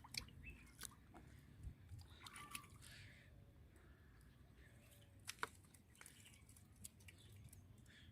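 Near silence with scattered faint clicks, one a little sharper about five seconds in.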